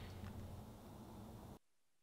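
Near silence: faint room tone with a steady low hum, which drops to dead silence about a second and a half in.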